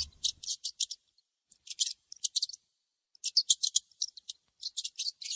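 Hamster squeaking in quick, high-pitched pips, several short runs of them with brief gaps between.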